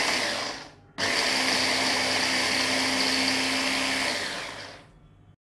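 Veneti electric hand blender with its chopper attachment, chopping green chillies, onion and coriander in a plastic bowl. The motor stops about half a second in, starts again about a second in, runs steadily for about three seconds, then spins down.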